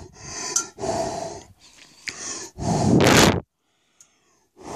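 A man blowing hard onto a stainless-steel bowl held close to the microphone, four puffs of breath with the last the loudest, to fog the metal so that fingerprints show up.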